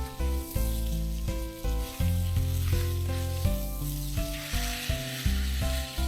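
Food sizzling as it fries in a pan, with background music and its bass line playing over it; the sizzle grows louder a little past the middle.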